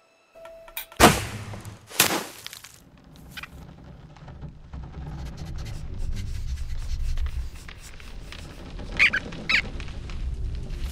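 Cartoon sound effects from an animated film soundtrack. There are two sharp hits about a second apart, then a low rumble that swells, and two short high squeaks near the end.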